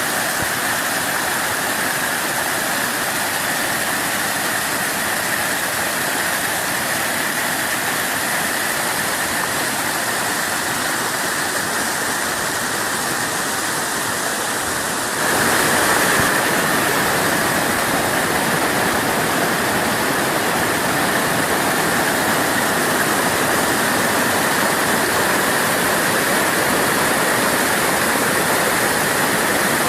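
Waterfall: a steady rush of falling water that jumps louder suddenly about halfway through.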